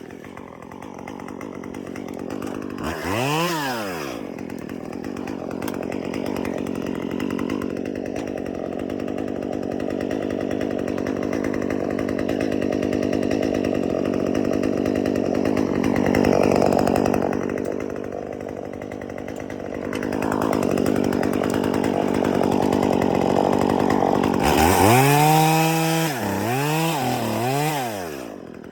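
Chainsaw revving up and back down once about three seconds in, then running steadily under load for about twenty seconds as it cuts into the tree. Near the end it is revved up and down three times in quick succession.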